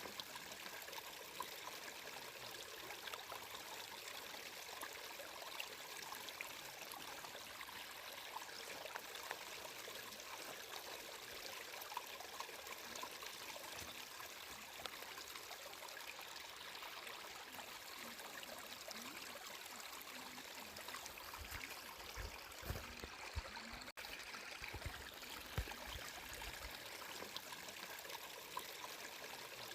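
Water flowing and trickling steadily in a small stream, a constant splashing hiss with fine droplet ticks and a few soft low thumps about two-thirds of the way through.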